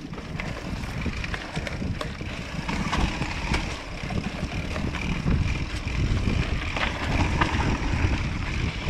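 Hardtail mountain bike descending a rocky trail: steady tyre rumble over dirt and stones with frequent sharp knocks and rattles from the rigid-rear frame and chain, and wind rushing over the microphone.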